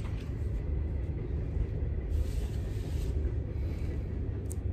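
Steady low rumble of a passing train, with a short rustle of paper or a record sleeve being handled about two seconds in.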